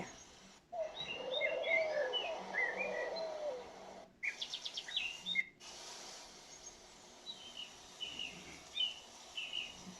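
A recorded nature soundscape of wind blowing through leaves, with several birds chirping over the steady rustling noise. The playback cuts out briefly about half a second in and again around four and five and a half seconds.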